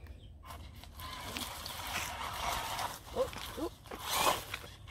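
Electric RC buggy's motor whirring as its tyres spin and scrabble in loose sand and dry leaves, the wheels slipping for lack of grip, with a louder surge near the end.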